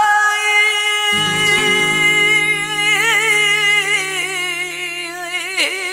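A female flamenco singer holds a long, wavering 'ay': the quejío that opens a cante de Levante, a taranta-minera. Low accompanying notes come in about a second in, and her voice dips near the end.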